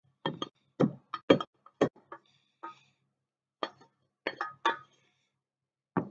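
Wooden spoon knocking and scraping against a stainless steel saucepan as the last of the cheese sauce is scraped out: a dozen or so sharp taps in irregular clusters, with a brief scrape between them.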